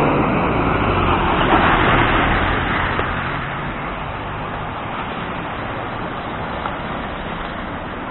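Street traffic: a vehicle passes close by, its noise swelling and fading over the first few seconds, then a steady hum of city traffic.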